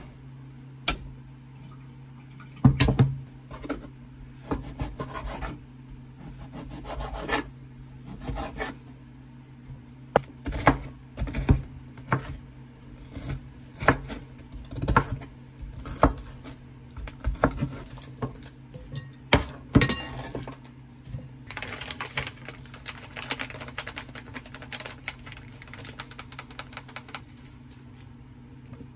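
Chef's knife chopping peeled shrimp on a wooden cutting board: a run of separate sharp knocks through the middle of the stretch. Before it come scattered knocks of hands handling shredded cabbage in a glass bowl, and after it a softer rustling stretch.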